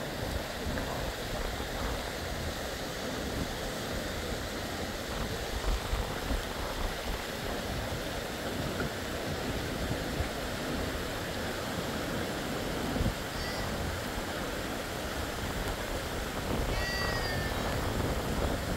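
Steady hiss of heavy rain, with two brief high-pitched cries, the first about 13 seconds in and a longer one about 17 seconds in.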